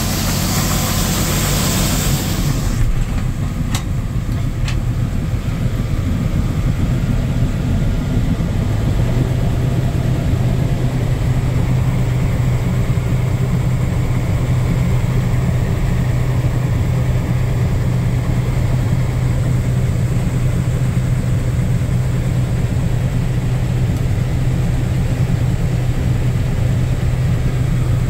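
Gleaner M2 combine running at work under load, heard from the operator's cab, while its unloading auger pours soybeans into a gravity wagon. A loud hiss in the first couple of seconds, then a steady low drone whose hum firms up about nine seconds in.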